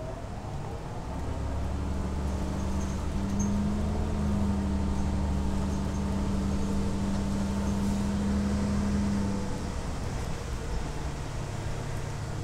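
Inside a New Flyer DE60LFR diesel-electric hybrid articulated bus under way: a whine rising in pitch fades at the start. A steady, deep engine drone then comes in about a second in and falls away about three-quarters of the way through, over constant road and tyre noise.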